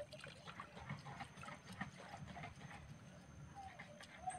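Faint, irregular clicks and small water sounds from a small hand net being handled in shallow water among floating plants.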